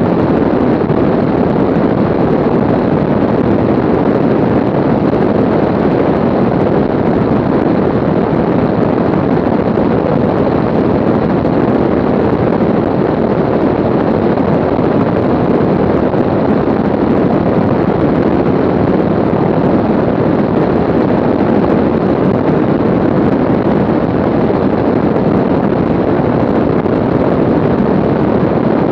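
Aircraft in flight: a steady, loud rush of engine and wind noise on the microphone, unchanging throughout.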